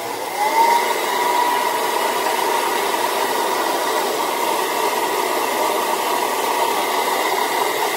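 Revlon handheld hair dryer running: a steady rush of air with a high whine that rises briefly as the motor spins up just after the start, then holds steady until it is switched off near the end.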